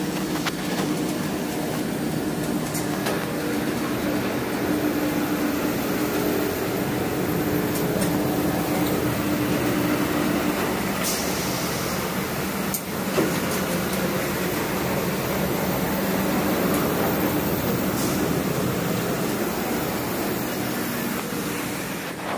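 Steady mechanical din of large industrial washing machines and tumble dryers running in a commercial laundry, with a low hum and a few faint knocks.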